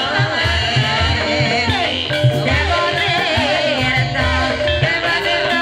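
Live Javanese gamelan ensemble music accompanying ebeg dance: gongs and hand drums keep a steady beat while a voice sings a wavering, gliding melody over them.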